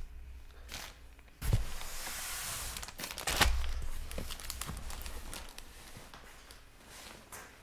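Packaging being handled: rustling and crinkling with scattered knocks and two thumps, about one and a half and three and a half seconds in, the second one the loudest.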